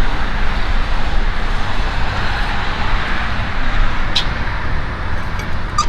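Steady road traffic noise with a low rumble, broken by a sharp click about four seconds in and a few quick ticks near the end.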